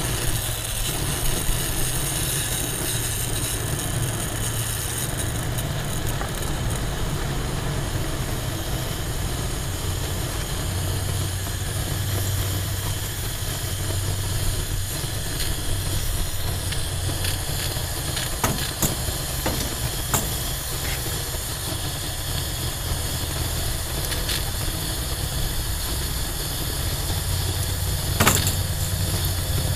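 Single-burner pressurized camp stove's burner lighting and then hissing steadily with a low hum under it as it burns with a blue flame. A few faint clicks and one sharper knock near the end.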